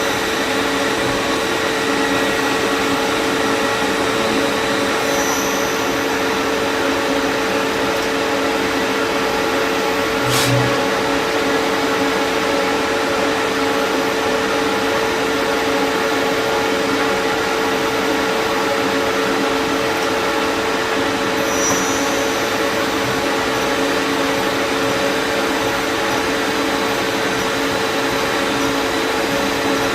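Lathe running steadily: an even machine whine made of several steady tones over a noisy hum, with one short knock about ten seconds in.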